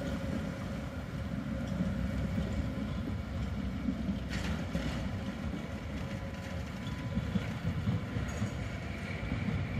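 Distant Tatra T4D tram train rolling into its depot: a steady low rumble with a faint thin whine over it.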